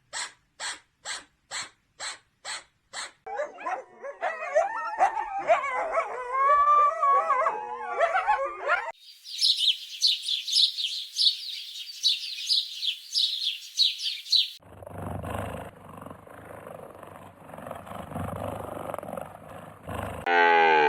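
Several different animal calls cut one after another. First comes a call repeated about two to three times a second. Then, from about three seconds in, a chorus of overlapping rising and falling whining cries, followed by rapid high-pitched calls and a rough, noisy stretch. A new deep call with many overtones starts near the end.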